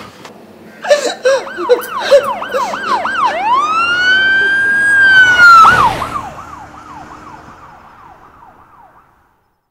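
Electronic emergency-vehicle siren in a fast yelp, switching about three seconds in to a long rising wail that holds. It then drops back to the yelp and fades away, gone before the end.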